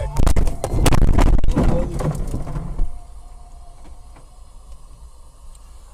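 A car crash: a loud crunching impact with scraping and rattling metal for about two and a half seconds, then a sudden drop to steady road noise.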